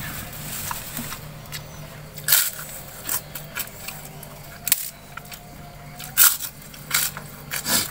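Kerupuk (fried crackers) being snapped and bitten: several sharp crunches about a second apart, the loudest about six seconds in, over a low steady hum.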